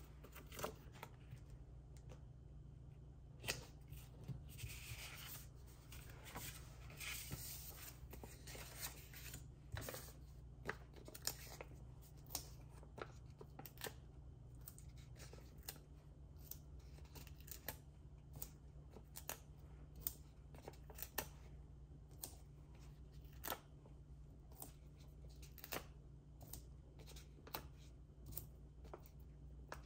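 Paper crafting by hand: paper and cardstock handled, rustling for a few seconds about five seconds in, with frequent light clicks and taps of tools and pieces set down, over a steady low hum.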